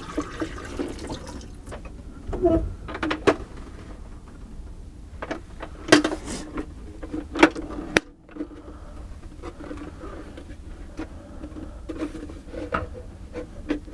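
Water being poured out of a Frigidaire 30-pint dehumidifier's plastic collection bucket, with scattered knocks and clatters as the bucket is handled, over the steady hum of the dehumidifier running on low fan.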